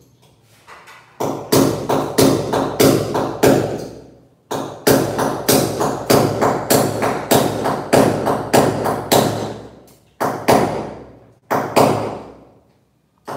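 Claw hammer blows fixing a metal curtain bracket to the wall, each blow ringing briefly. A run of blows, a short pause, a longer run at about two blows a second, then a few slower blows near the end.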